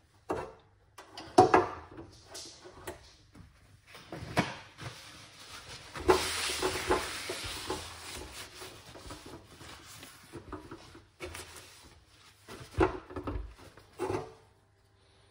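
Kitchen handling at an electric hotplate: scattered knocks and clicks of a steel saucepan and the hotplate's control knobs, then a few seconds of paper towel rubbing across the hotplate, then a couple more knocks.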